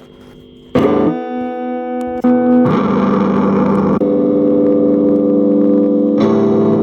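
Electric guitar (a Fender Stratocaster played with the fingers, no pick) through a Hotone Pulze Mini amp. Chords are struck about a second in and again after about two seconds, then ring out held, changing twice more.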